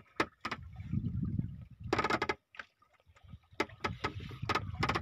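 Irregular sharp clicks and knocks of fishing gear and boat handling over a low rumble of wind and water, with a short near-quiet break about half-way through.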